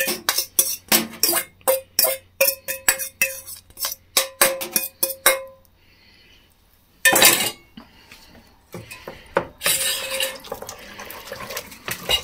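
A spoon knocking instant mashed potato out of a stainless-steel bowl, a quick run of clinks with a short metallic ring. After a brief pause there is a louder clunk, then a wooden spoon stirs the mash into a stainless-steel pot of stew with a thick scraping.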